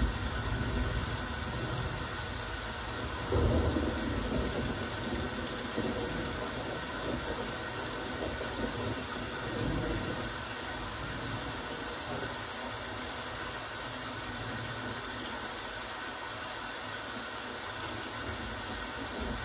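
Steady rain falling, an even wash of noise, with a brief low rumble about three and a half seconds in.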